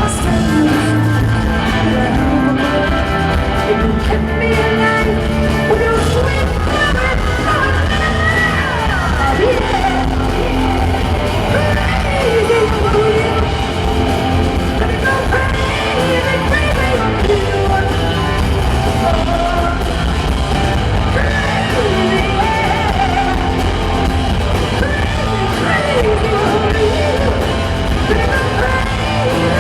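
Live rock band playing loud, with guitars, drums and a woman singing lead in long sliding notes. It is heard through a distorted audience recording.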